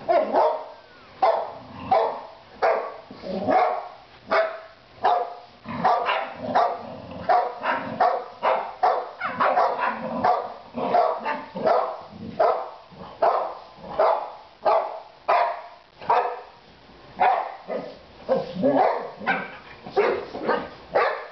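Boxer dogs barking in play, a long unbroken string of short barks coming about twice a second.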